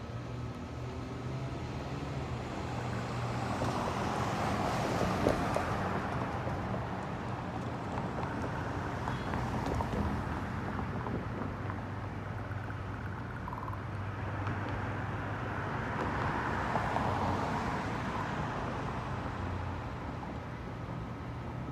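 Road traffic: two cars pass one after the other, each swelling up and fading away over a few seconds, over a steady low rumble.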